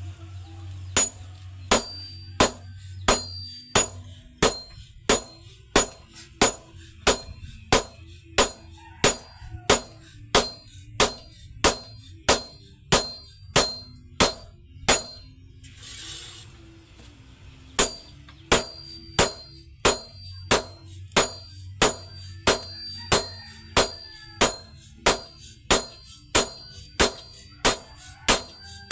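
Hammer blows on hot iron at an anvil, about two a second, each strike ringing out with a high metallic ring. The hammering stops for about two seconds halfway through, with a brief hiss in the gap, then resumes at the same pace.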